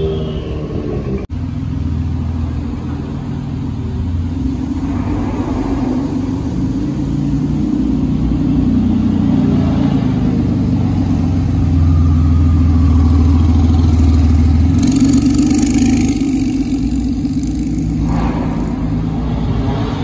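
Sports car engines running and revving as rally cars pull away one after another, a low rumble that swells to its loudest past the middle. A brief dropout about a second in.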